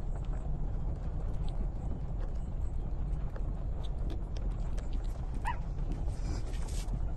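Newborn puppies nursing, with faint small clicks and one short high squeak from a puppy about five and a half seconds in, over a steady low rumble.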